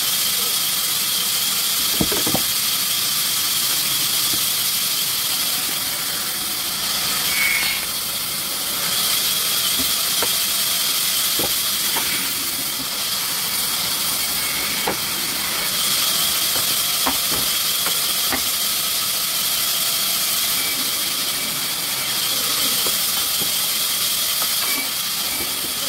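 Sawmill machinery running steadily with a high hiss and whine, and scattered short knocks.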